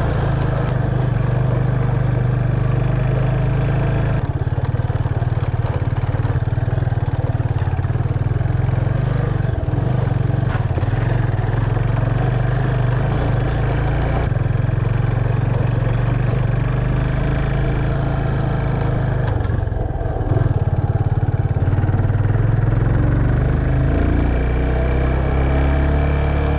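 Yamaha FZ25's single-cylinder engine running as the motorcycle rides along, its note changing a few times as the speed or gear changes, with a steady rush of tyre and road noise.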